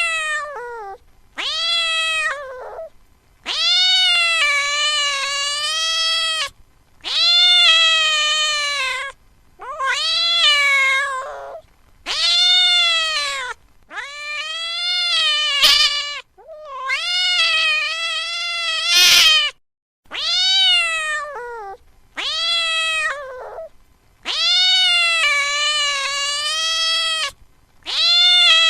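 Domestic cat meowing over and over: about a dozen long, drawn-out meows, each rising and then falling in pitch, with short pauses between them. There is a brief click twice in the middle.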